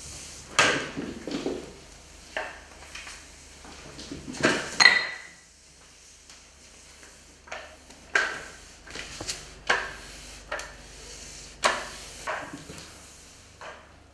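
Sponge mop on a metal handle knocking and scraping over a tiled floor: irregular clacks and rattles, with one brief metallic clink that rings about five seconds in.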